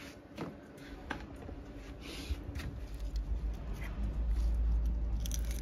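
Scissors snipping chilli pepper stems off the plant: a few sharp clicks with a brief rustle of leaves, under a low rumble on the microphone that builds from about a second in and becomes the loudest sound.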